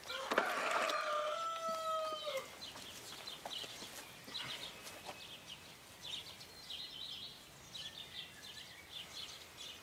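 A rooster crowing once, a long held call that drops off at its end about two and a half seconds in, followed by small birds chirping.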